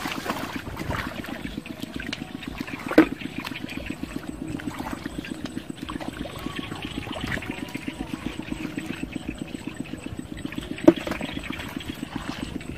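Feet and hands splashing and sloshing in shallow muddy water, over a steady low pulsing hum, with two sharp knocks, one about three seconds in and one near the end.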